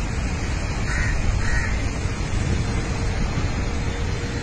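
Two short crow caws, about a second and a second and a half in, over a steady low rumble.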